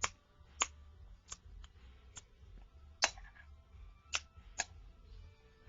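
About eight short, sharp clicks at uneven intervals, over a faint low hum.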